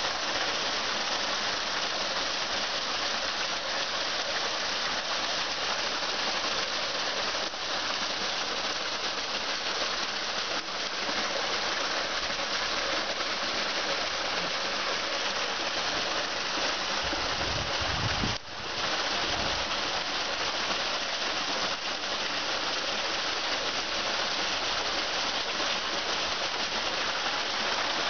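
Steady rain falling, an even hiss spattering on concrete and metal. A brief low rumble comes about two-thirds of the way through.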